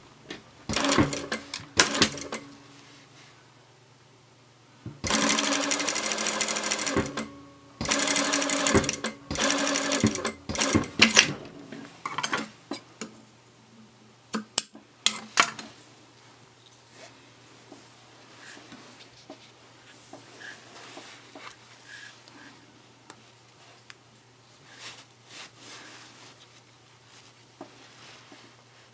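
Sewing machine stitching in three quick runs over the first dozen seconds, each a rapid, even chatter of the needle, stopping and starting between them. A few sharp snips of scissors trimming the thread follow, then only the soft rustle of fabric being handled.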